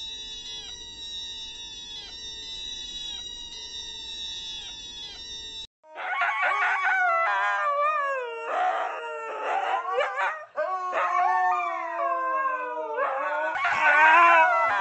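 A dog howling: long drawn-out calls that rise and fall in pitch, starting suddenly about six seconds in. Before that, a steady high tone dips briefly in pitch about twice a second and then cuts off.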